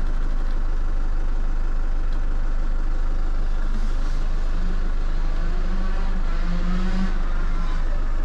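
Van engine idling steadily, with a Tassimo pod coffee machine brewing alongside. A humming tone that wavers in pitch comes in about four seconds in and fades near the end.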